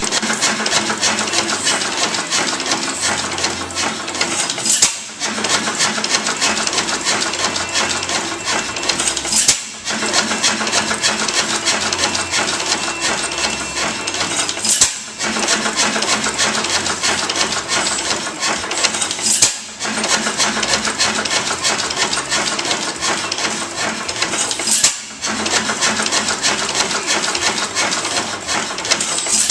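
5 HP Galloway round-rod hit-and-miss engine running on its saw rig, barn-fresh and run for the first time in a long time. It gives a steady mechanical clatter with a sharp bang about every five seconds, the engine firing between coasting strokes.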